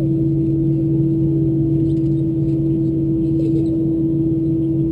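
Airbus A319 cabin noise while taxiing: its CFM56 engines running at idle, a steady drone with two constant hum tones over a low rumble.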